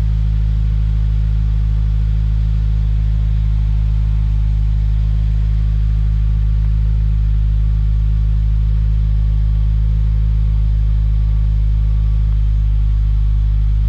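2016 Subaru WRX turbocharged flat-four idling steadily through an STI SPT cat-back exhaust with a catted Cobb J-pipe and stock headers. It is a deep, even exhaust note with no revving.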